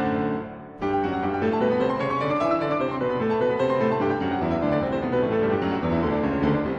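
Background piano music: a flowing passage of many notes.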